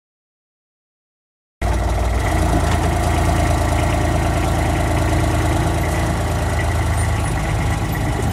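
About a second and a half of silence, then the engine of a small Exmoor Steam Railway-built four-wheel diesel locomotive running steadily.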